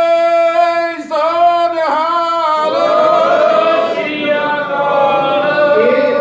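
A man singing a Sikh devotional line without accompaniment: a long held note that breaks off about a second in, then a sung phrase whose pitch swoops up and down.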